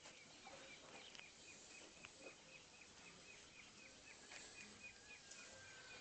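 Near silence outdoors, with faint, evenly spaced short high chirps, about four a second, and a few soft clicks.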